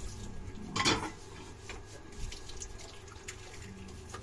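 Dishes being washed at a kitchen sink: water running from the tap, with a loud clatter of dishes about a second in and a few lighter clinks after.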